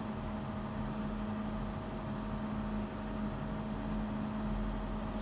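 Steady electrical hum with a fan-like hiss from running microsoldering bench equipment, holding one low tone and a fainter higher one; a few faint ticks near the end.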